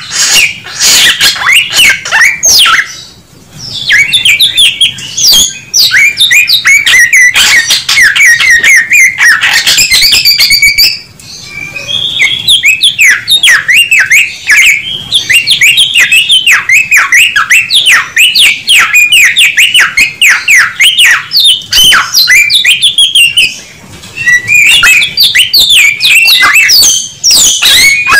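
Samyong (Chinese hwamei) singing loudly in fast, varied phrases of rapidly repeated whistled notes, with brief breaks about three, eleven and twenty-four seconds in.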